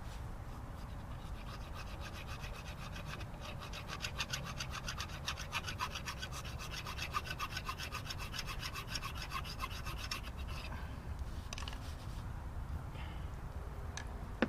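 A tool rasping in a fast, even rhythm, starting about four seconds in and stopping about ten seconds in, over a low steady background noise.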